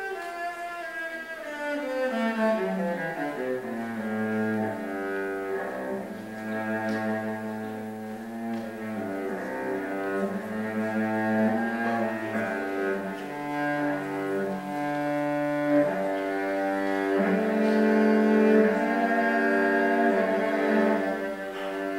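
Cello played with the bow in a slow melody. It steps down from the middle to the low register over the first few seconds, then plays long held notes.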